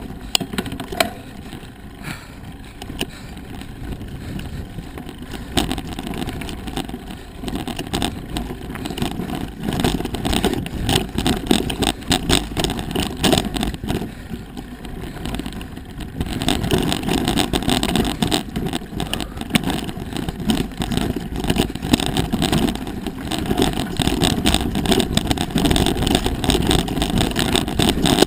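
Mountain bike rolling fast over a rough dirt and rock trail: tyres on gravel and stone under a constant clatter of small knocks and rattles, with wind rumbling on the microphone. It grows louder past the middle as the trail turns rockier.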